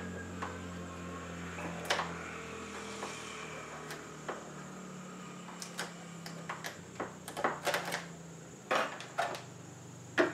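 Sticky adhesive tape being picked, peeled and scraped off the top of a vinyl window sash by hand, making scattered short clicks and scratches. They come thicker in the second half, with the sharpest click near the end, over a low steady hum.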